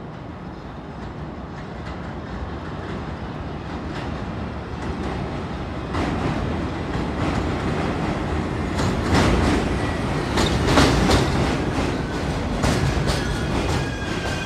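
An R62A subway train approaches on elevated track and runs into the station, its rumble growing steadily louder. From about nine seconds in, the wheels clack over rail joints in rapid repeated clicks as the cars pass close by.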